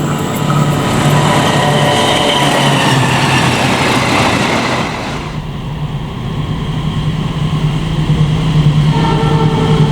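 Diesel locomotive-hauled train on the rails: a steady low engine drone under rushing wheel-and-rail noise. The rushing eases off about five seconds in, then the noise builds again with a rhythmic beat near the end.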